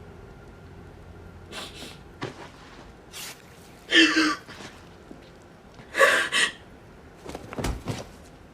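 A person gasping and breathing out sharply several times, the two strongest breaths about four and six seconds in, with a soft low thump near the end.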